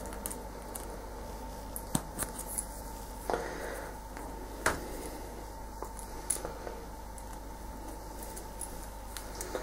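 Scattered small metal clicks and a brief scrape about three seconds in, from a screwdriver prying at the springy retaining clip on a brass tap cartridge spindle.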